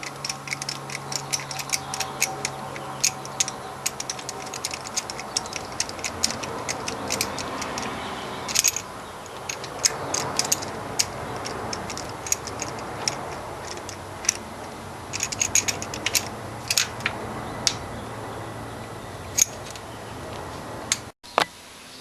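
Socket ratchet clicking in quick runs, with pauses between, as the bolts of a Jesel shaft-mount rocker assembly are run down on a small-block Chevy cylinder head.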